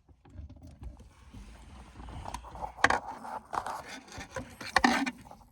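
Irregular clicks, taps and short scrapes of hand work on a pickup's plastic center console, as a screwdriver goes at its Phillips head screws.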